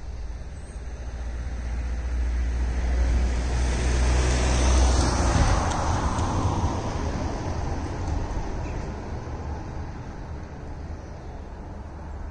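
A van driving past on the road, its engine and tyre noise swelling to a peak about five seconds in, then dropping in pitch and fading away.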